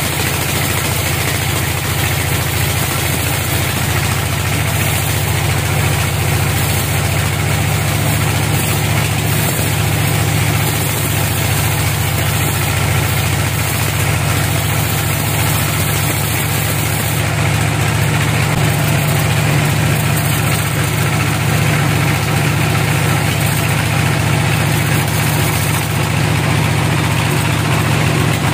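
Band sawmill running and cutting lengthwise through a large teak log: a loud, steady machine noise with a strong low hum.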